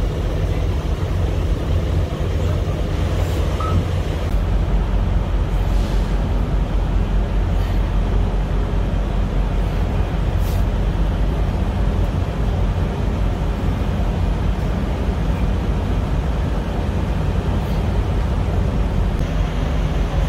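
Heavy diesel engine idling: a steady low rumble.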